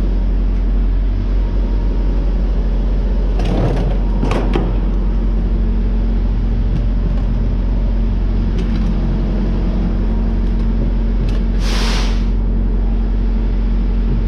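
Diesel pumped through a fuel-station nozzle into a plastic jerry can, under a steady low mechanical hum. There are two short clattering noises about three and a half and four and a half seconds in, and a brief hiss of air near the end.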